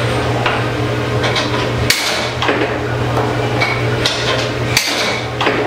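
Tornado air hockey table in play: the table's air blower hums steadily under repeated sharp clacks of the puck against the mallets and rails. The two loudest cracks come about two seconds in and near the end.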